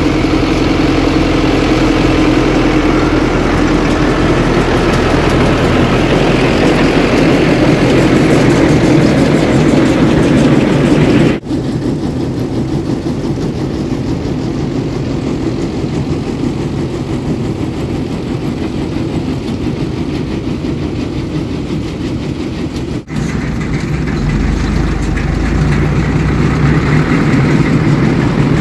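Ursus 1014 tractor's diesel engine running steadily while pulling a Krone round baler through hay. It is heard close up, then fainter for a stretch in the middle, then close again, with two abrupt breaks where the sound jumps.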